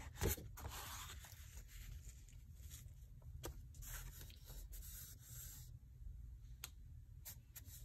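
Pages of a spiral-bound watercolour sketchbook being turned and handled: a page flips over with a paper rustle and a knock just after the start, then softer rustles of fingers moving on the thick paper and a few light ticks.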